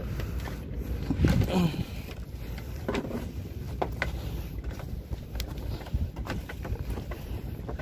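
Footsteps along a bamboo walkway: scattered knocks and creaks from the bamboo slats and poles underfoot, over a steady low rumble.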